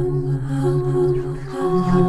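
Layered recordings of a single singer's voice holding long, wordless notes together in a drone-like harmony. The lowest note steps up in pitch about one and a half seconds in.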